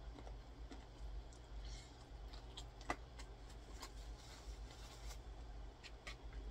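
Faint chewing and mouth clicks of someone eating fried chicken, with small crackles of fingers pulling meat and crispy skin off the pieces. There is a sharper click about three seconds in.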